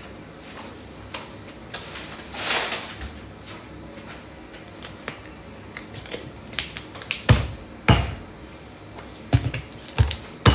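Kitchen handling noises as things are picked up and set down at a stone countertop: scattered light clicks, a short rustling hiss about two and a half seconds in, and several sharp knocks in the last few seconds.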